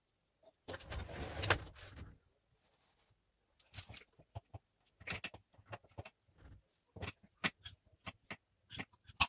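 Clothes being sorted in a wardrobe: a rustling, sliding noise about a second in, then a run of sharp clicks and knocks from hangers and the wardrobe.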